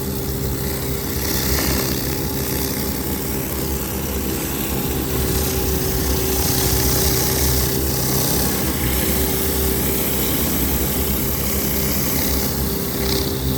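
Hot-water pressure washer rig running steadily, its Kubota engine driving an 8 gallon-a-minute, 3,500 PSI Udor pump, with the hiss of high-pressure hot water spraying on concrete.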